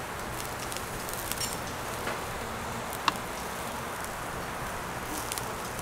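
Steady background hiss of an open-air barbecue restaurant, with a few light clicks of tableware, one sharper click about three seconds in.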